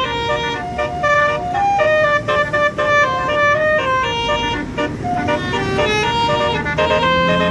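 Tour bus's basuri musical air horn playing a quick tune of stepping notes. A low steady note joins near the end.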